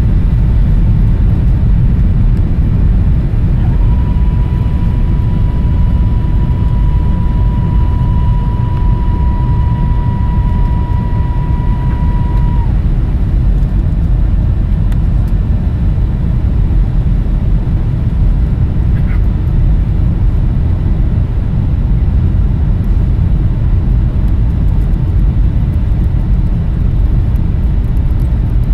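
Steady low roar of a jet airliner's engines and rushing air, heard inside the cabin in flight. A steady high whine joins about four seconds in and cuts off suddenly some nine seconds later.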